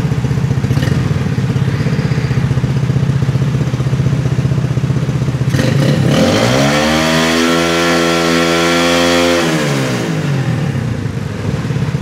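Honda 67 motorcycle's small single-cylinder four-stroke engine idling with a fast, even putter, then revved up about six seconds in, held at higher revs for about three seconds, and let fall back to idle.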